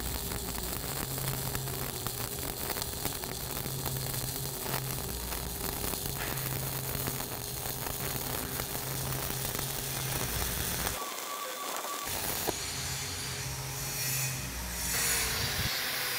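A 7018 stick electrode arc-welding at 130 amps gives a steady frying crackle during a horizontal fill pass. About eleven seconds in it breaks off, and after a short gap a different steady noise follows.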